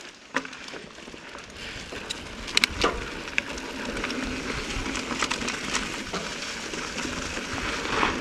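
Mountain bike rolling over a rocky trail: a steady rush of tyre and wind noise, broken by sharp rattles and knocks as the bike hits rocks, the loudest cluster about two and a half to three seconds in.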